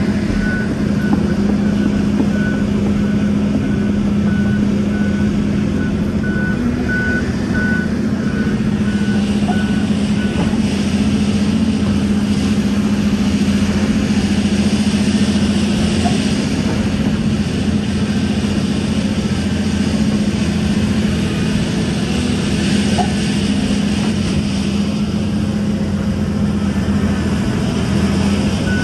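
Volvo EC700 excavator's diesel engine running steadily as it digs. A reversing alarm beeps steadily over the first ten seconds or so.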